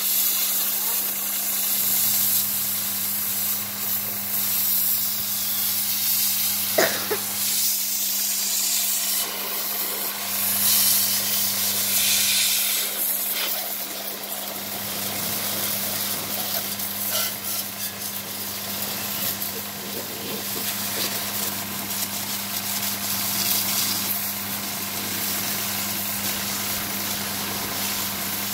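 High-pressure water jet from a pressure-washer hose spraying the metal engine and iron cage wheels of a walk-behind tractor: a steady hiss of spray, with a steady low hum underneath.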